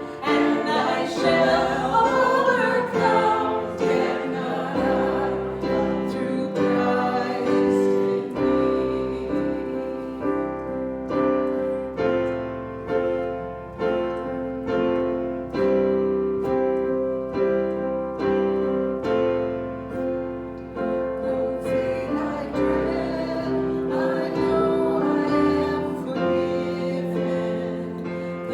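Piano playing a hymn with voices singing, the singing clearest in the first few seconds.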